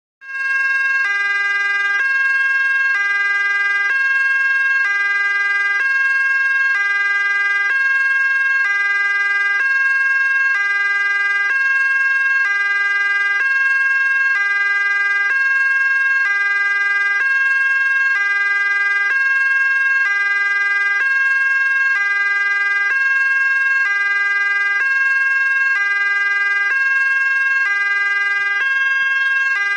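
Ambulance siren in a two-tone hi-lo pattern, switching between two pitches about once a second at a steady level.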